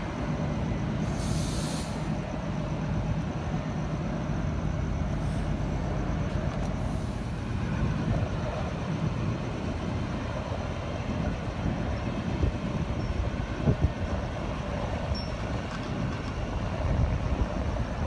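New Intercity Fleet D-set double-deck electric train running steadily as it pulls out and draws away, with a short high hiss about a second in.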